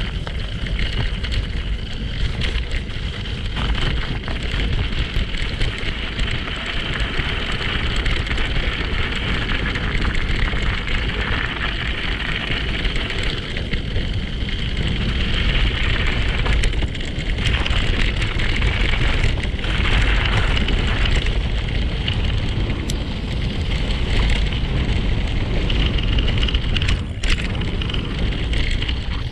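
Wind buffeting the microphone of a camera moving along a gravel forest track: a steady low rumble with a constant hiss over it.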